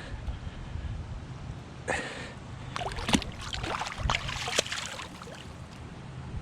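Outdoor wind rumbling on the microphone, with a cluster of short clicks and knocks about two to five seconds in.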